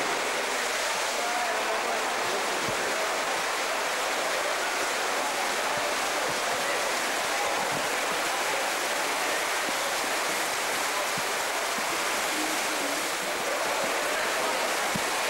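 Steady wash of splashing water from swimmers racing in an indoor pool, echoing in the hall.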